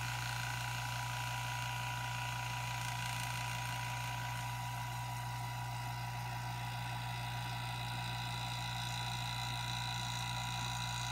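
Electric vacuum pump running steadily, pulling vacuum on a filter flask for vacuum filtration: a constant low hum with a thin steady whine above it.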